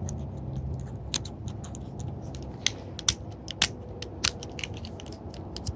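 A small plastic fidget toy being handled: irregular sharp clicks and taps, the loudest spread through the second half, over a low rumble of handling noise.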